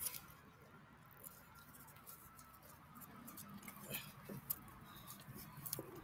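Dogs eating dry kibble off the ground: irregular small crunches and clicks of chewing and pellets being picked up, busier in the second half.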